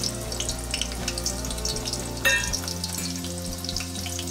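Chopped onion frying in hot oil with whole spices in a metal pot: a steady sizzle full of small crackles. A single short metallic clink comes about halfway through.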